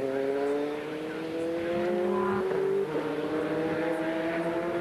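Prototype race car engine accelerating along a straight, its pitch climbing steadily, with one upshift a little under three seconds in before it climbs again.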